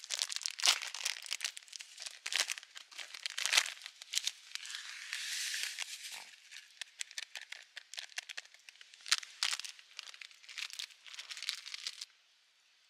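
A plastic snack-style pouch crinkling and crackling as it is handled. From about 4.5 to 6 seconds in, dry granules pour out of it into a wooden bowl with a steady hiss, followed by more crinkling of the bag.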